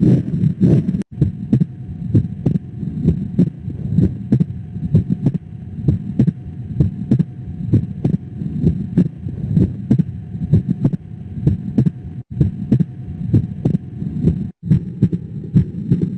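Heartbeat heard through a stethoscope during auscultation: a steady run of low, evenly repeating heart sounds, broken by a very short silent gap about a second in and twice near the end.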